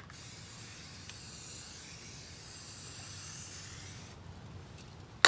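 Aerosol spray-paint can spraying a steady hiss of paint onto a tub of water for about four seconds, then stopping. A single sharp click comes right at the end.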